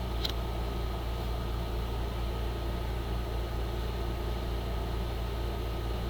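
Steady low background hum with a faint hiss, and one small click about a quarter second in.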